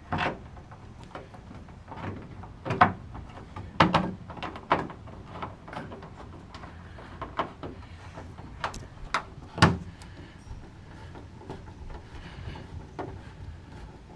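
Irregular clicks and knocks of a retainer screw being driven back in to hold aluminum rocker panel trim, with a few sharper knocks about three, four and ten seconds in.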